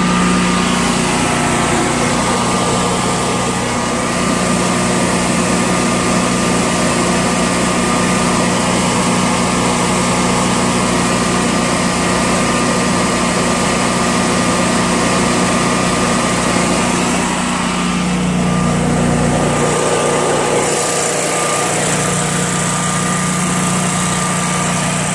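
Generac 22 kW home standby generator's air-cooled V-twin engine running steadily with no load on a test run, a thin steady whine above the engine hum.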